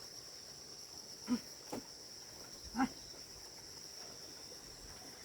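Steady high-pitched chirring of crickets. Two short voice-like sounds break in, about a second and a half apart.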